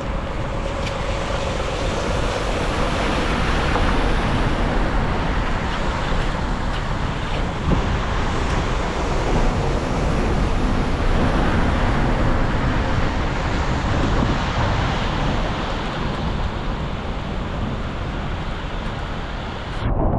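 Floodwater rushing steadily through a culvert, with wind buffeting the microphone.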